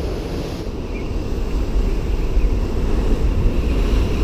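Heavy surf breaking against a concrete tetrapod breakwater, with wind rumbling on the microphone.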